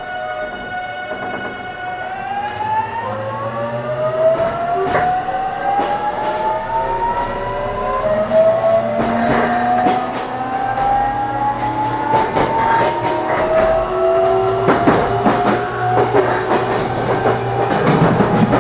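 Toshiba GTO-thyristor VVVF inverter and traction motors of a JR Kyushu 813 series electric train accelerating from a standstill, heard inside the motor car. A steady whine lasts about two seconds, then comes a series of rising whines that drop back and climb again as the inverter changes modes. Wheels click over rail joints under it.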